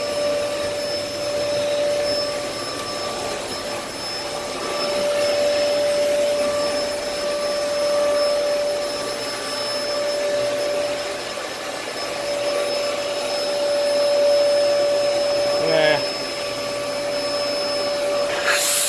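Dyson DC14 upright vacuum cleaner running, its motor giving a steady whine whose loudness slowly rises and falls. About 16 seconds in there is a brief wavering squeal, and just before the end a short loud hiss.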